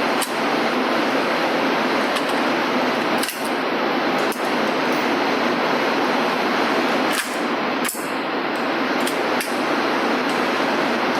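Several sharp cracks over a loud steady rushing noise, the strongest about three, four, seven and eight seconds in: shots from a 5.56 mm AR-15 carbine fitted with a Knight's Armament NT4 QDSS suppressor.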